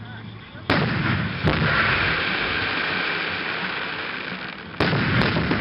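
Aerial firework shells bursting: a sharp bang under a second in, a second one shortly after, and a steady hissing rush lasting about four seconds. Another sharp report comes near the end, followed by quick pops.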